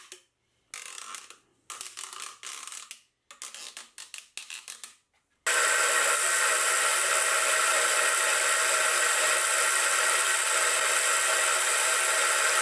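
Short, irregular clicks and scrapes as a segmented plastic coolant hose is bent into place. About five seconds in, a steady loud run of a Sieg X2.7L milling machine starts abruptly as a 10 mm end mill cuts a keyway slot in a steel block.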